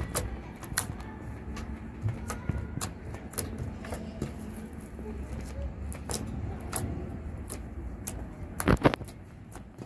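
Purple glue-free fluffy slime being kneaded and poked by hand, giving off irregular sharp clicks and pops as trapped air squeezes out, with a louder run of pops near the end.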